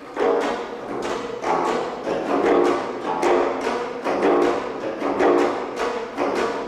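Ensemble of four geomungo (Korean six-string zithers), each in a different scordatura tuning, played together in dense overlapping strokes. The strings are struck and plucked with bamboo sticks, so each note has a sharp knocking attack followed by a ringing, decaying tone.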